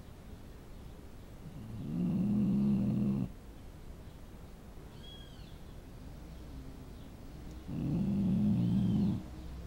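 Dog snoring: two long, low snores, each lasting about a second and a half, roughly six seconds apart.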